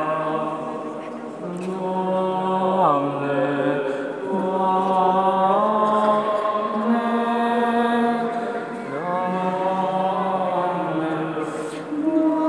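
A man's single voice chanting a slow hymn in long held notes, in phrases with short breaks between them, with a pitch slide about three seconds in.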